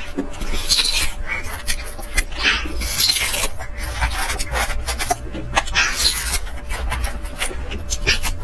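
Green sugarcane being stripped and chewed: the fibrous rind is torn off with the teeth and the cane is crunched. The sound is a run of irregular rasping tears and crunches.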